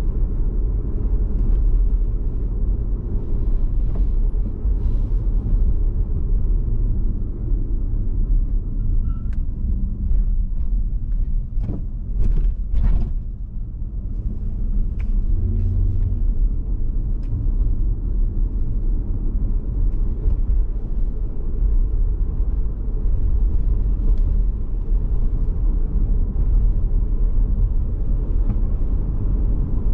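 Road and engine noise inside a moving car's cabin: a steady low rumble of tyres and engine, with a short cluster of sharp knocks about twelve seconds in.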